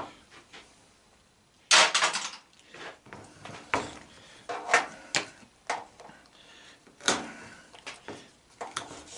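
Hand tools and metal propane regulator parts knocking and clicking on a workbench as they are handled, with a louder clatter about two seconds in.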